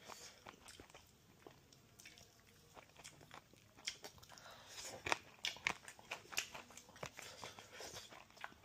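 A person quietly chewing and biting into fried fish, with scattered small crunches and clicks that come thicker about halfway through.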